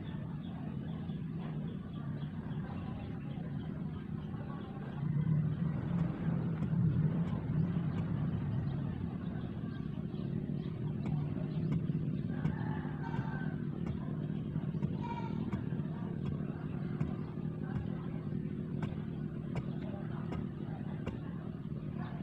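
A motor engine running steadily with a low hum, growing louder about five seconds in and easing off again after about twelve seconds.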